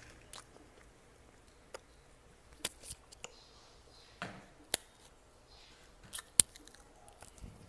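Close-miked chewing of a dry, crunchy snack: scattered sharp crunches and clicks, about ten in all, spaced irregularly with quiet gaps between them.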